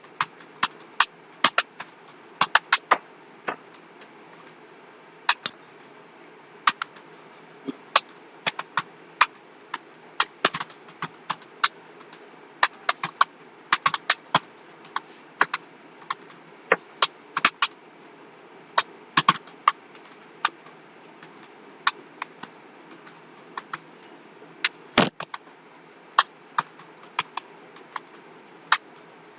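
Computer keyboard being typed on: irregular keystrokes, a few a second with short pauses, over a steady faint hiss.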